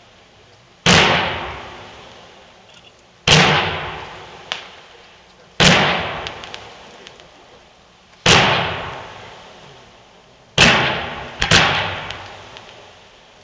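Consumer firework cake, a 130-shot brocade waterfall, firing: six sharp bangs about two to three seconds apart, the last two less than a second apart. Each bang trails off over a second or so.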